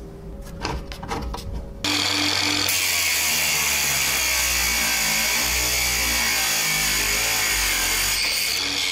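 A few light clicks, then about two seconds in a benchtop abrasive cut-off saw starts suddenly and runs steadily, its disc grinding through an 8 mm steel rod.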